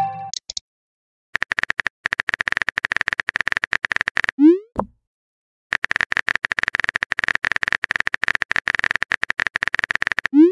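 Phone keyboard typing sound effect: two long runs of rapid clicks, each ended by a short rising pop as a chat message is sent, about four seconds in and again near the end.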